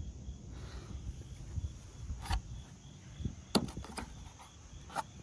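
A few light clicks and knocks, four in all and the second one loudest, from car body parts being handled over a low steady background hum.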